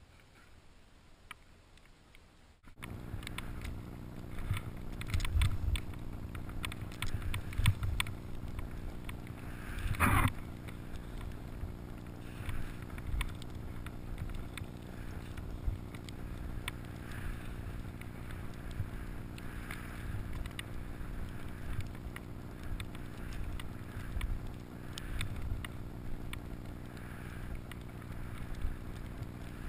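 Wind buffeting a helmet-mounted camera's microphone while snowboarding downhill, with the board sliding over snow: a steady low rumble with irregular thumps and one louder knock about ten seconds in. The rumble starts suddenly about three seconds in, after faint quiet.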